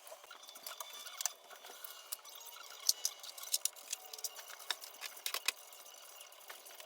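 Irregular light clicks and ticks with soft rustling, from clothes being handled and folded.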